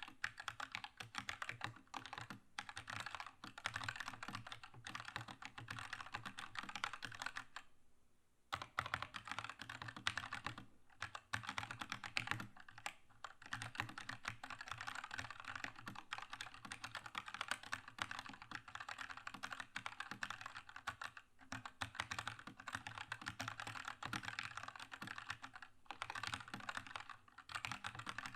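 Fast continuous typing on a Keychron K2 mechanical keyboard with red linear switches, a dense stream of key clacks. It breaks off for under a second about eight seconds in, with shorter gaps later.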